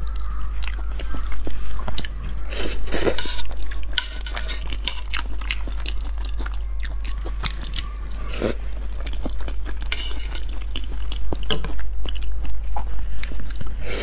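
Close-miked chewing of raw salmon sashimi: wet smacks and many short, sharp mouth clicks, coming in louder clusters of bites.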